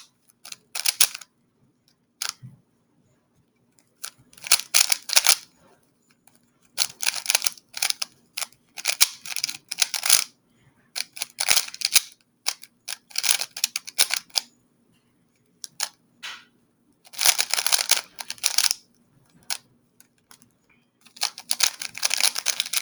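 Plastic speedcube being turned fast, its layers clacking in quick rattling runs that come in about eight spurts with short pauses between them.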